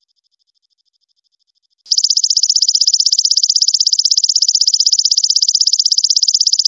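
Belalang emas katydid calling. A faint, high, pulsing trill gives way about two seconds in to a loud, rapid, high-pitched buzzing trill that keeps going.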